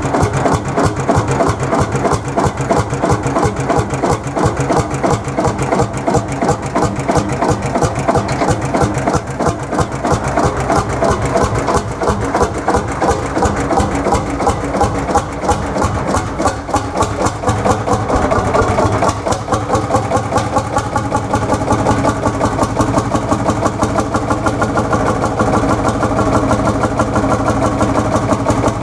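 Lanz Bulldog tractor's single-cylinder two-stroke hot-bulb engine running with a rapid, even beat.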